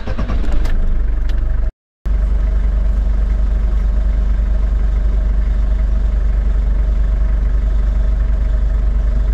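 Vehicle engine running steadily while driving, a loud deep rumble heard from inside the vehicle, with a brief total dropout about two seconds in.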